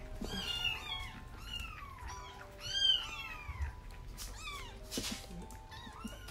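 Young kittens mewing over and over in short, high cries that fall in pitch, about two a second, sometimes overlapping. A brief rustle of handling comes about five seconds in.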